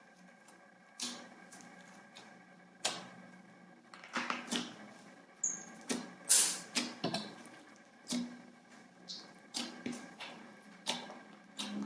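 Slime being worked by hand, giving about a dozen irregular short wet clicks and pops, the loudest a little past the middle.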